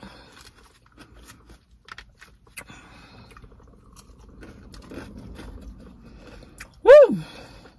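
A person chewing a mouthful of crunchy salad, with many small crackles and crunches. About seven seconds in comes a short hummed "mm" that rises and falls in pitch.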